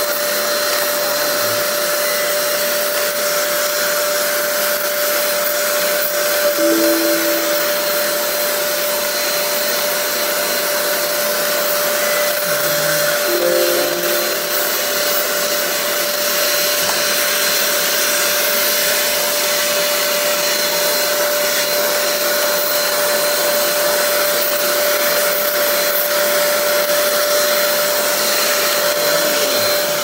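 Euro Fine EF6239 1000-watt handheld vacuum cleaner running steadily, its small brush attachment drawn over a computer keyboard. A constant whine sits over the rush of air.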